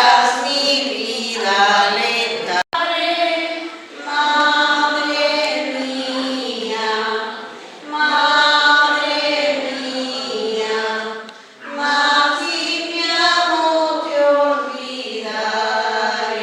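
A group of voices singing a hymn in phrases of about four seconds, each followed by a short breath pause. The sound cuts out for an instant early on.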